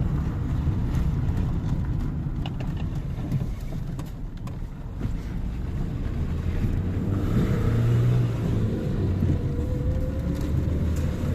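Road vehicle running: a steady low rumble, with an engine note that swells about seven to nine seconds in.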